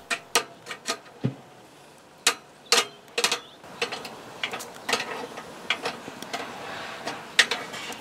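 Metal hand tools clicking and knocking against a brass compression fitting on copper pipe as the nut is tightened with a wrench, in scattered sharp clicks. A faint steady hiss comes in about four seconds in.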